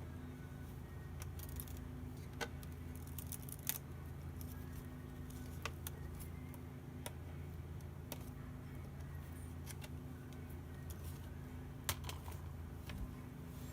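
Scattered small clicks and taps of hands and small tools on a laptop's case and screws, irregular and a second or so apart, over a steady low electrical hum.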